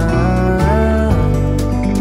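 Background music: a gentle, song-like passage of held notes that slide smoothly from one pitch to the next.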